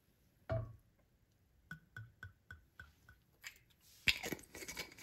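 Cooking oil being poured out for a dough: a run of six quick, even glugs, then a louder spattering clatter near the end as the oil goes into a stainless-steel mixing bowl. A single soft knock comes about half a second in.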